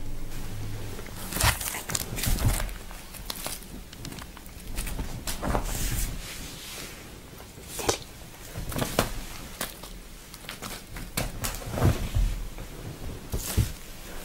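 Cat batting and pouncing on a small plastic spare-button bag on a fabric cover: irregular soft crinkles, taps and scuffles of paws.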